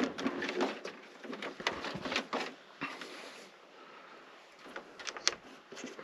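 Scattered light clicks, taps and rustles of hands handling wires and connectors in a pickup truck's engine bay, hooking a lead up to the battery.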